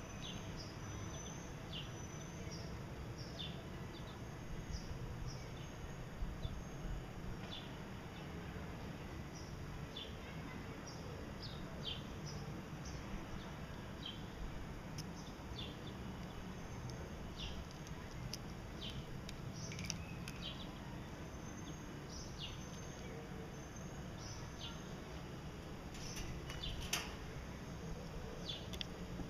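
Gouldian finches giving short, scattered chirping calls over a steady low background noise, with a few sharper clicks near the end.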